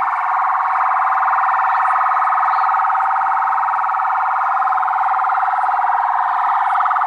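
Police vehicle siren sounding continuously, a steady high wail pulsing rapidly without breaks.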